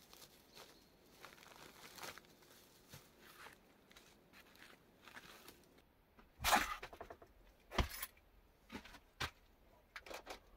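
Faint crackling of dry branches and leaf litter as a person moves about the brushwood-covered entrance of a dugout. About six seconds in, a louder rustle, then a sharp knock and a few lighter knocks of wood and handling inside the small log-lined dugout.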